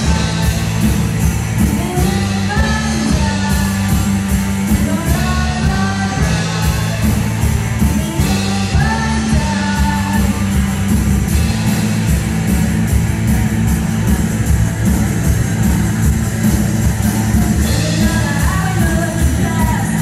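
A live rock band playing, with electric guitars and a drum kit keeping a steady beat under a singer.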